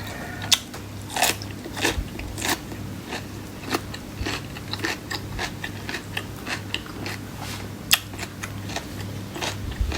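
Close-miked eating: biting and chewing crunchy food, a steady run of crisp crunches and clicks, with a low steady hum underneath.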